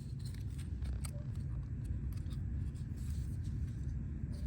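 A few faint light clicks of thin metal brake pad shims being fitted together by hand, over a steady low hum.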